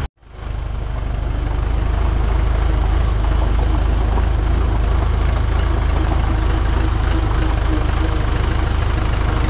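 Tractor engine running steadily with a low, even rumble. It swells in over the first second and cuts off abruptly at the end.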